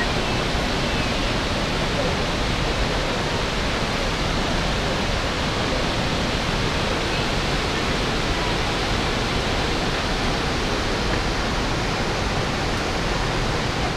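Waterfall plunging into a rock pool: a steady, unbroken rush of falling water that cuts off suddenly at the end.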